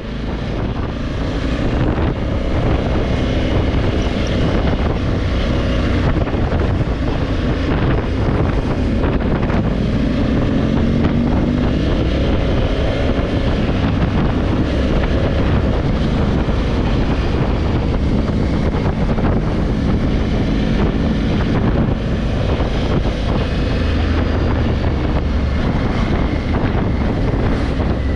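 Honda Africa Twin 1100 parallel-twin engine running under way as the motorcycle is ridden, getting louder over the first couple of seconds and then holding steady, with wind buffeting the microphone.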